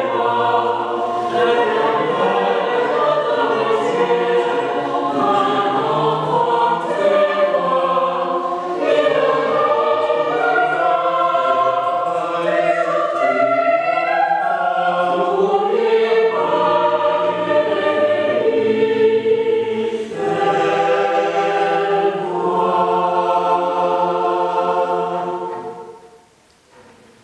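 Small mixed choir singing a cappella in held, slowly changing chords. The final chord ends about 26 seconds in and dies away in the church's echo.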